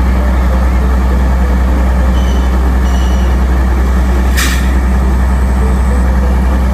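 Diesel engine of a three-axle hook-lift truck idling steadily, with a short hiss of air about four seconds in.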